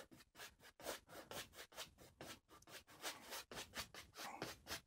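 Paintbrush scrubbing oil paint onto canvas in quick back-and-forth strokes: a faint, rhythmic rubbing of about four to five strokes a second.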